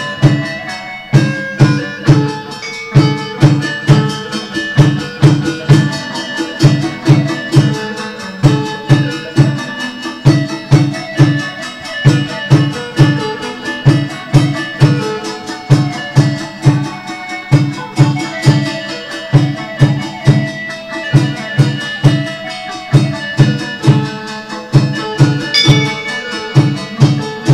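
Chầu văn ritual music for a hầu đồng possession ceremony: a steady drum beat about twice a second under a plucked string melody with percussion.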